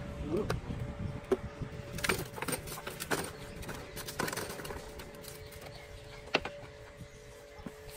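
Scattered knocks and clicks from a submersible sewage pump and its cable being handled, busiest in the first few seconds and thinning out after, over a faint steady hum.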